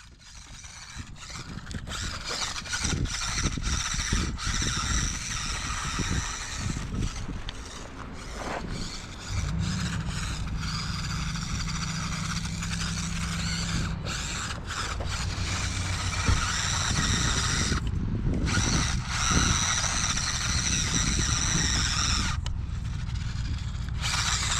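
Losi Micro B 1/24-scale RC car's small brushed motor and drivetrain whining as it drives, the whine dropping out briefly twice in the second half. A low steady hum joins about ten seconds in.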